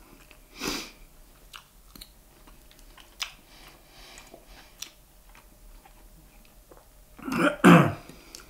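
A man chewing food, with small clicks of a fork against a plate. Near the end comes a louder, short breathy vocal noise.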